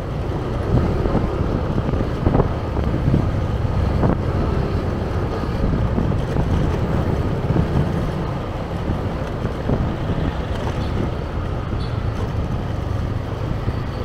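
Motor scooter running slowly through street traffic, with wind rumbling on the microphone.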